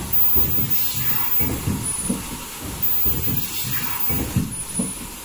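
Richpeace II-type foldable mask production line running, with a hissing, mechanical noise that swells in a regular cycle about every second and a half.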